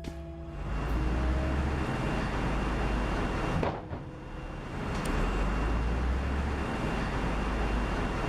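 Heavy machinery running: a strong low engine rumble under a dense, steady noise, with a sudden brief dip a little under four seconds in.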